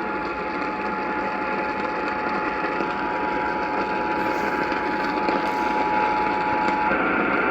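Radio receiver playing a steady single tone over a dense hiss of static. The tone cuts off about seven seconds in, and the hiss turns brighter.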